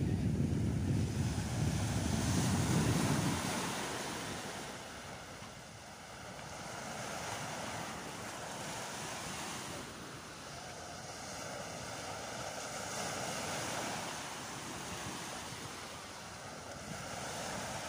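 Small waves breaking and washing up on a sandy beach: a steady surf hiss that swells and eases every few seconds. Wind buffets the microphone with a low rumble for the first three seconds or so.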